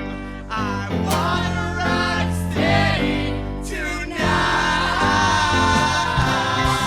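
Live ska/rocksteady band playing, with group vocals over bass and guitar; the band comes back in fuller and louder about four seconds in.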